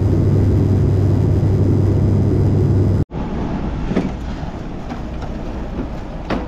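Propeller airliner cabin noise from a seat beside the propeller: a loud, steady low drone. It cuts off suddenly about three seconds in, giving way to a quieter rumble with a couple of sharp knocks.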